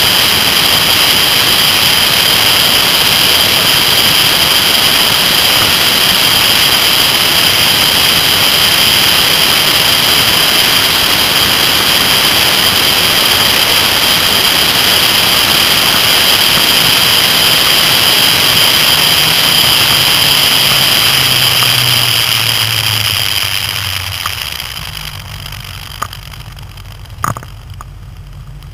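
Kawasaki ZR-7S motorcycle, its air-cooled inline-four engine running under heavy wind and road noise at speed. About 22 seconds in the noise dies down as the bike slows, leaving a low, steady engine note near idle, with two sharp clicks near the end.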